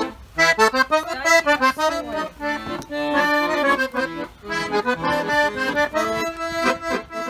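Piano accordion playing a tune: a quick melody of short notes over held lower notes.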